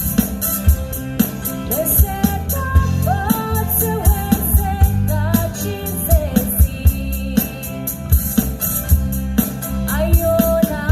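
A song: a singing voice carrying a gliding melody over a steady drum beat and bass.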